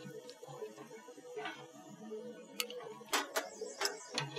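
Metal grill tongs clicking and tapping against the gas grill's grates, about five sharp clicks in the second half, over a faint steady hum.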